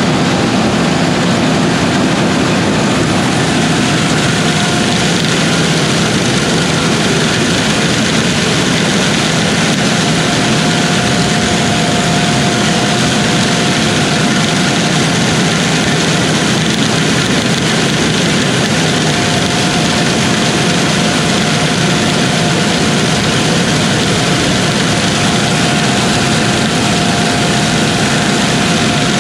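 Combine harvester running steadily while harvesting wheat, its engine and machinery making an even noise, with a faint whine that comes and goes.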